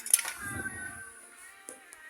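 Background music with sustained and gliding tones, and a sharp knock just after the start followed by a brief low thump.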